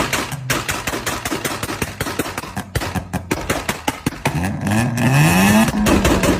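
Sports car engine running with rapid, irregular crackling pops from the exhaust, then revving up in one rising climb lasting about a second and a half near the end.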